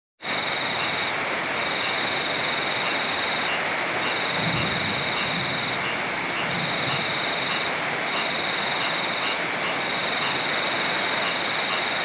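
Steady rush of heavy rain and flowing river water. A high trill comes and goes in spells of one to two seconds over it, and a soft low rumble comes in about four and a half seconds in.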